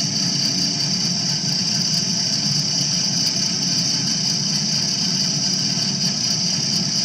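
Milling machine running steadily while cutting a window in a sprinkler part, a constant low hum with a steady high hiss.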